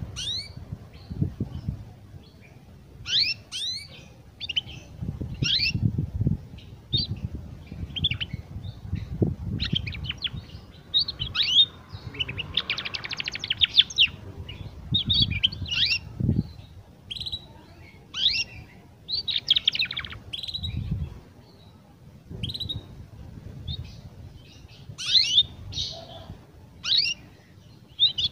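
Young domestic canary practising its song: irregular soft twittering of short chirps and quick rising and falling notes, with a brief fast trill about twelve seconds in. This is a juvenile's unfinished practice song, not yet a full adult song.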